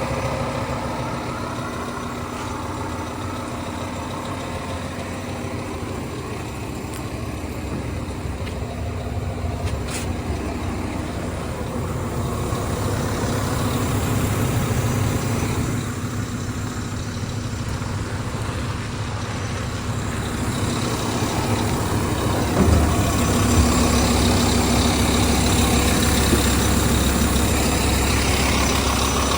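Doosan DX300LC-5 hybrid excavator's diesel engine running steadily, growing a little louder in stretches, with a single knock about two-thirds of the way through.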